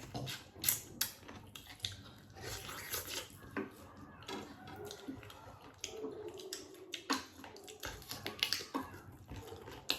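People eating at close range: chewing and biting food, with scattered sharp clicks and wet mouth noises.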